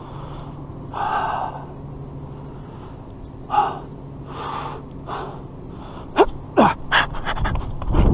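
A man breathing hard between sprints, with separate heavy exhales and gasps and a few short sharp squeaks around six to seven seconds in. Near the end the sound jumps to a loud rush of running footsteps and wind on the microphone as he starts to sprint.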